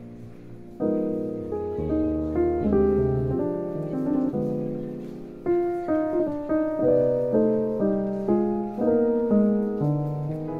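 Background music: a piano playing a slow melody over chords, the notes struck and left to fade, coming in louder about a second in.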